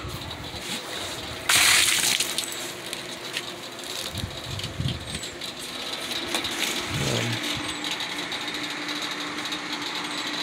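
Rustling and handling noise from the camera moving about under the boat's canvas Bimini top, with one loud brief rustle about a second and a half in.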